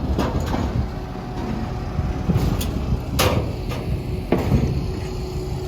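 A handful of irregular knocks and bangs, about six in all, over a steady motor hum.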